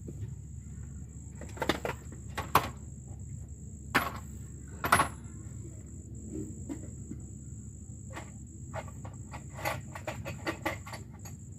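Scattered sharp clicks and knocks from hand tools working in an engine bay, a few single ones and then a quicker run of small clicks near the end, over a steady low hum. Insects trill high and constantly.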